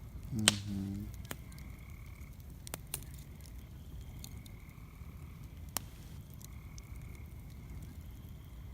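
Frogs calling at night, short croaking calls repeating every second or two. A few sharp clicks cut through, the loudest together with a short low sound about half a second in.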